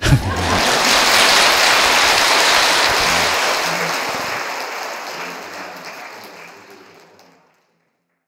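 A crowd applauding, starting all at once, holding steady, then slowly dying away and stopping near the end.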